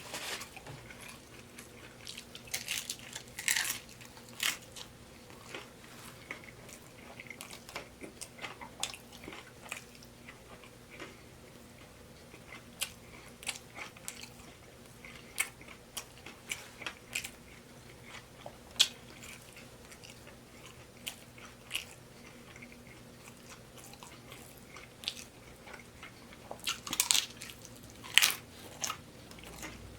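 Close-miked eating of a taco salad with a crispy oven-baked tortilla shell bowl: chewing, crunching and mouth smacks in scattered clicks, with busier bursts about 3 seconds in and near the end, over a faint steady low hum.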